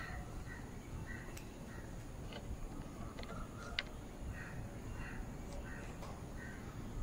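Faint bird calls repeating about every half second, with two sharp clicks, the louder one a little before four seconds in, over a low background rumble.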